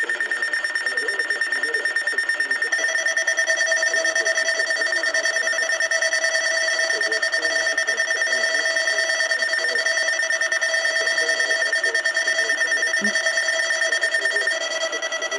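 Alert alarms of NOAA weather radios beeping rapidly and steadily, set off unexpectedly by a Required Weekly Test. A second alarm with a lower tone joins about three seconds in, and one of them drops out near the end.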